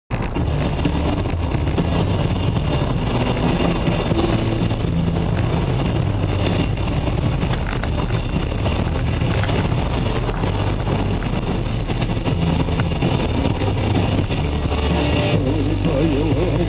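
Steady engine and road noise of a moving car heard from inside the cabin through a dash-cam microphone, a low continuous rumble.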